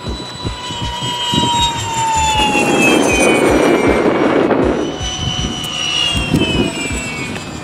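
Electric ducted-fan (impeller) RC jet on a 12-cell battery making high-speed passes. A high whine falls in pitch as the jet goes by, with a loud rushing swell in the middle, and a second falling whine comes near the end.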